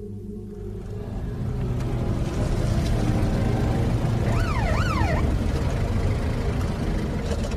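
Car engine running, getting louder over the first two seconds. About four seconds in, a short siren wails up and down twice, a patrol car signalling a driver to pull over.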